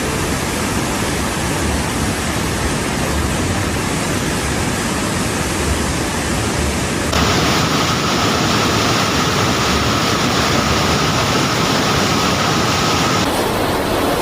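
Loud, steady rush of water, growing louder and hissier about halfway through, then easing back near the end.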